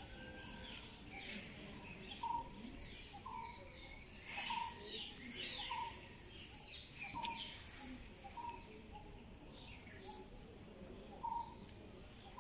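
Many small birds chirping and calling in the trees, a dense mix of short high chirps, with a lower short note repeating over and over.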